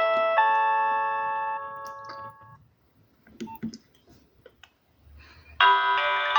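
Nokia 6030 mobile phone playing a polyphonic ringtone of held chord-like notes. The tune stops about two and a half seconds in, a few faint clicks follow, and a different ringtone starts near the end.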